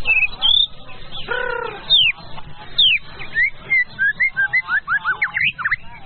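White-rumped shama (murai batu) singing: varied clear whistles, with a lower, harsher note about a second in and sharp downward-sweeping notes, then a quick run of short rising and falling whistles in the second half.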